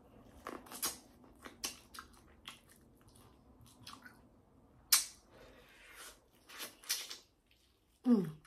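Close-miked eating sounds from a buttery seafood boil: wet chewing, lip smacks and small clicks, with a sharper click about five seconds in. A brief hum falling in pitch comes near the end.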